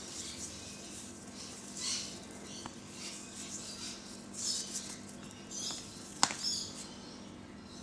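A rainbow lorikeet tussling with a fleece slipper on a tiled floor makes short, soft scuffles and rustles, with a sharp click a little after six seconds in.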